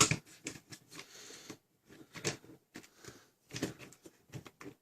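Hard plastic parts of a Nerf Rival Fate blaster's opened shell clicking and knocking as they are handled and fitted back in place: an irregular run of small clicks, with louder clacks at the start, about two seconds in and about three and a half seconds in.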